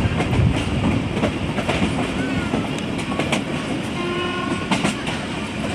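Pakistan Railways passenger train running, heard from aboard: a low rumble with wheel clicks over the rail joints as it slows into a station. A brief steady horn-like tone sounds about four seconds in.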